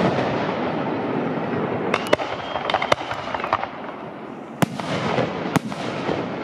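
Fireworks display: aerial shells bursting in several sharp bangs over a continuous dense crackle of bursting effects.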